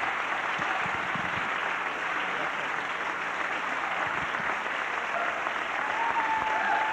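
An audience applauding steadily, with a few voices rising above the clapping near the end.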